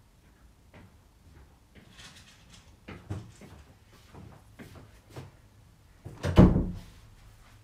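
Scattered knocks, clatter and rustling from someone moving about off camera, with one loud, heavy thud about six and a half seconds in.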